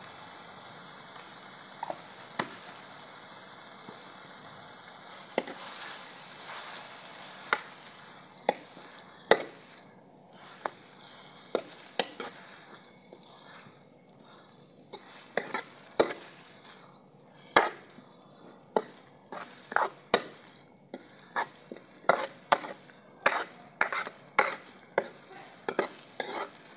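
Steel ladle stirring grated bottle gourd halwa in a wok, the mixture sizzling steadily as its sugar syrup cooks down. Sharp clicks and scrapes of the ladle against the pan come more often in the second half.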